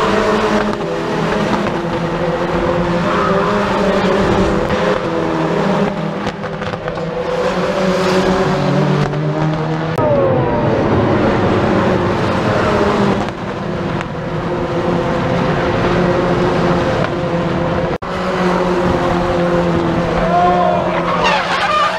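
Racing car engines running hard at high revs as cars pass on the circuit, the pitch falling as they go by. Near the end, tyres skid as one hatchback race car slides off the track.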